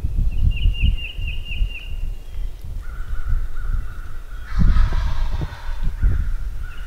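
Wild turkey gobbling once, a short harsh rattling call roughly halfway through. A songbird repeats a quick run of high chirps near the start, and wind rumbles on the microphone throughout.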